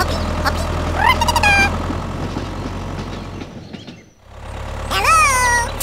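Low steady tractor engine drone that cuts out a little past halfway and returns about a second later. Two short high-pitched calls sweep up then down in pitch over it, about a second in and near the end.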